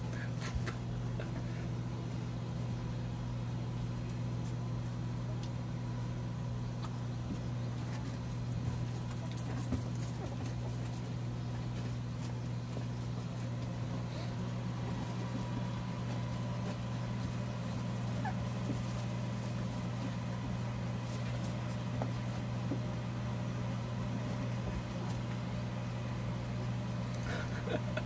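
Steady low hum of a high-powered electric fan running, with occasional faint clicks and small squeaks from puppies suckling.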